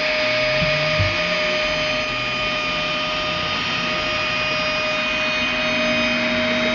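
Bosch electric router running at a steady speed, with a constant high whine over a rushing noise, as its bit cuts the edge of a walnut and maple tabletop.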